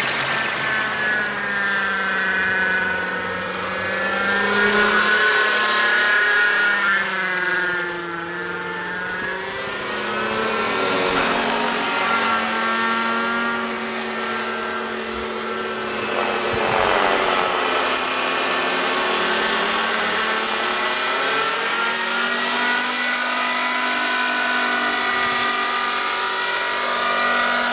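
Model helicopter flying: a steady pitched motor and rotor whine whose pitch swoops down and back up twice, about eight and seventeen seconds in.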